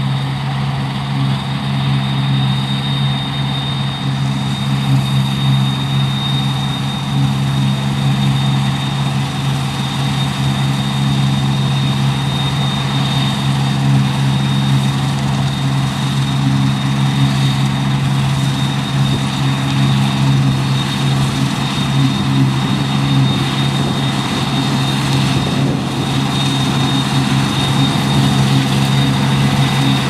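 Deutz-Fahr 5690 HTS combine harvester running steadily under load while cutting spring barley: a loud, even engine hum with a constant high whine above it and the noise of the working machinery.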